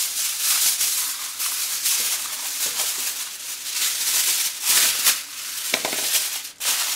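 Aluminium foil crinkling and rustling as a sheet is pulled from the roll and pressed down over a glass baking dish, in an irregular run of loud crackly bursts.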